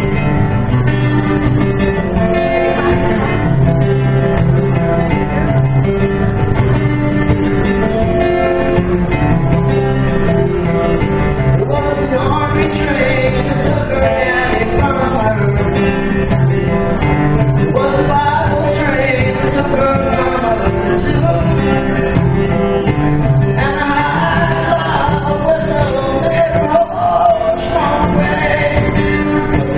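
Live guitar and voice: a strummed guitar plays alone at first, then a man starts singing over it about twelve seconds in.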